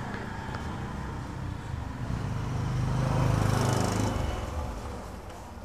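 A motor vehicle's engine running in the background, growing louder about three seconds in and then fading.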